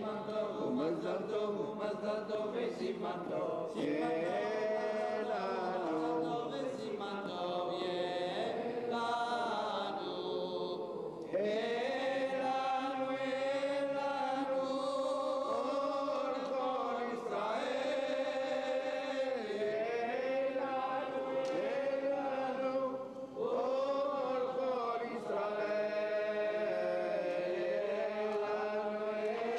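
A single voice chanting the Torah reading in traditional cantillation, with long held notes that glide and turn between phrases.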